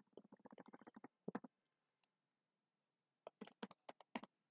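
Faint computer keyboard keystrokes: a quick run of key presses in the first second as text is deleted, then, after a pause of about two seconds, a handful of separate key presses as a short word is typed.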